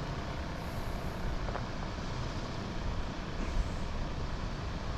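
Steady low rumbling outdoor background noise with no distinct events, of the kind made by wind on the microphone or distant road traffic.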